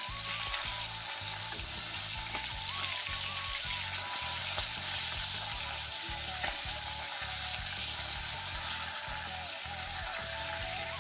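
Fish pieces frying in hot oil in an iron wok, sizzling steadily while a spatula turns them, with a couple of light spatula knocks. Background music with a melody and a beat plays underneath.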